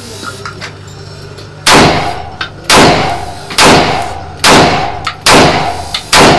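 30 bore (7.62×25 mm Tokarev) pistol fired six single shots a little under a second apart, each shot ringing briefly off the walls.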